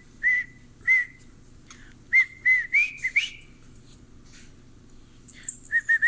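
Cockatiel whistling short, clear, arched notes in broken phrases: a couple of single notes, a quicker run of four or five about two seconds in, then after a pause a fast cluster near the end.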